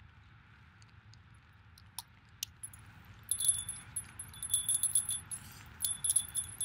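A small metal hand bell shaken, ringing with a high clear tone and rapid jingling clicks in two bouts, the second about a second after the first ends. A couple of light single clicks come before it.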